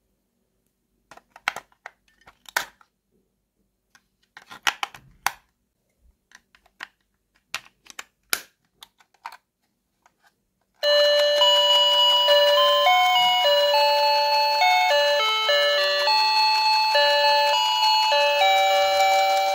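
Batteries pressed into a plastic toy sewing machine's battery compartment: a scattering of sharp plastic clicks and taps. About eleven seconds in, the toy's electronic sound chip starts up and plays a beeping melody, one note at a time, much louder than the clicks.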